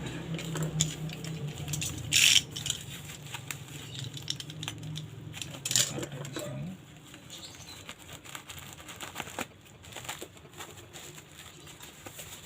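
Handling of a cardboard parcel and its packing: rustling, scraping and small knocks, with two short, louder tearing or rustling sounds about two and six seconds in. A low steady hum underneath stops about seven seconds in.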